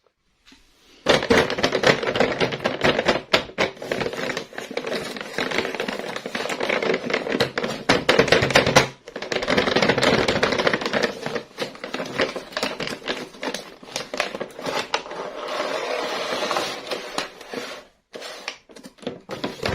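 Plastic toy pieces and packaging being handled and unboxed: dense, rapid clicks and crinkling that stop briefly about nine seconds in and again near the end.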